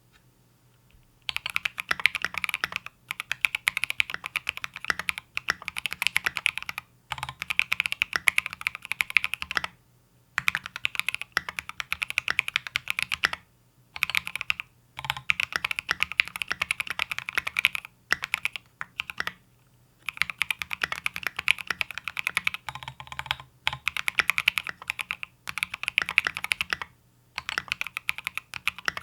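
Fast typing on an E7-V2 prototype keyboard with Obsidian switches and SA-profile Oblivion V2 keycaps: dense runs of key clacks lasting a few seconds each, broken by short pauses, starting about a second in.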